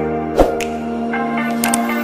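Intro music with sustained, layered notes, and a single sharp hit about half a second in.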